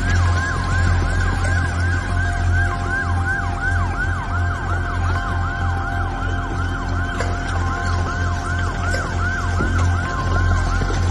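Emergency vehicle siren in a fast repeating pattern, each cycle a quick falling wail, about three a second, over a low steady rumble.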